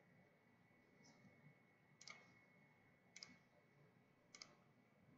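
Faint computer mouse clicks, three of them about a second apart, over near silence.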